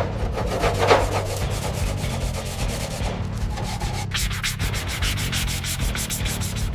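Fast, even rubbing strokes, as of sanding or scrubbing a surface by hand, several strokes a second and sharper in the second half.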